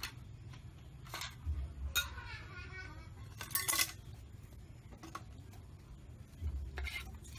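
A knife cutting on a wooden chopping board: a handful of separate, uneven knocks rather than a steady chopping rhythm, with a few clinks of crockery and cutlery among them.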